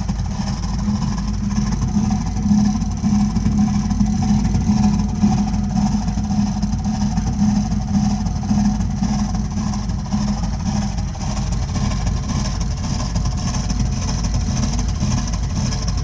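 Burnham Alpine gas condensing boiler running with a loud, steady low drone and a pulsing hum, which eases off about two-thirds of the way through. This is the abnormal loud noise that makes up the boiler's ongoing problem.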